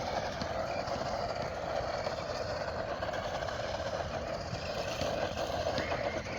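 A 1:10 brushless RC monster truck driving over dirt, its motor and tyres making a steady running noise.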